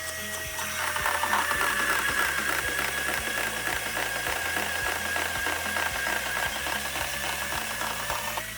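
A compact cordless band saw with a high tooth-count blade running with a steady whine and cutting through metal. The cut starts about a second in and goes slowly, ending shortly before the end.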